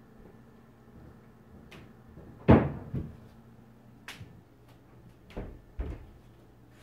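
Several knocks and thumps: a loud one about two and a half seconds in, a second half a second later, and a few lighter ones after, over a faint steady low hum.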